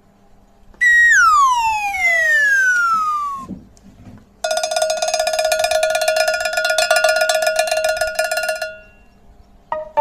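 Added sound effects. A falling whistle-like tone slides down in pitch for about three seconds. After a short pause, a steady ringing tone pulses rapidly for about four seconds, like an electric bell or alarm.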